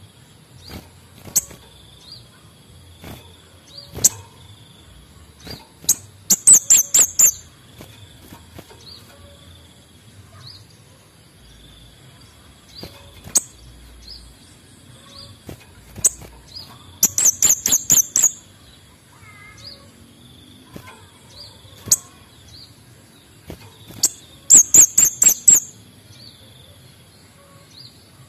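Male kemade bunga api songbird singing: three loud trills of six or seven rapid, very high notes, each lasting about a second, with single sharp high call notes scattered between them.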